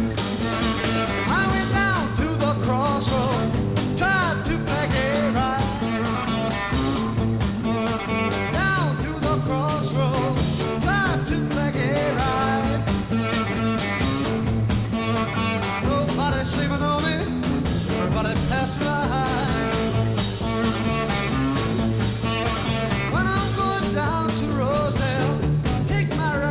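Rock backing music with a steady beat and a melody that bends in pitch.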